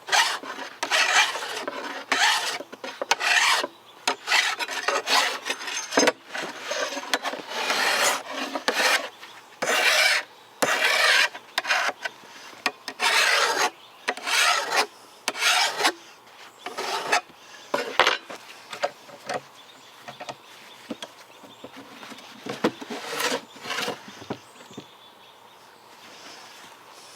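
Hand file rasping in repeated strokes along the edge of a steel chainsaw bar, about one stroke a second, taking off the sharp burr left by grinding the bar flat. The strokes thin out about 20 seconds in, with a few more a little later.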